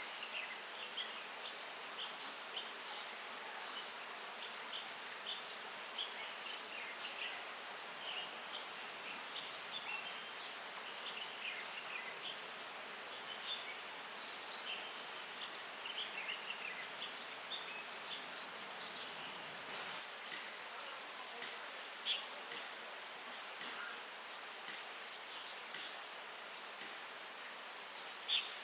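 A steady chorus of insects trilling in two continuous high tones. Short scattered chirps or ticks sound beneath it, with a few louder clicks in the last few seconds.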